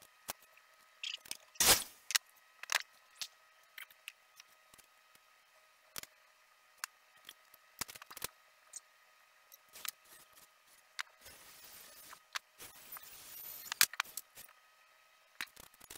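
Workshop handling sounds: scattered clicks and light knocks of wooden frame parts, screws and a cordless drill being moved about on a workbench. Near the end comes a stretch of rough scraping noise lasting about three seconds.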